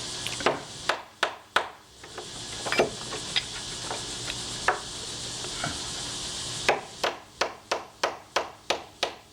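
Light hammer taps on a deadbolt latch being set into the edge of a wooden door: scattered knocks at first, then a steady run of about two or three taps a second from about two-thirds through. A steady hiss underneath stops where the regular tapping begins.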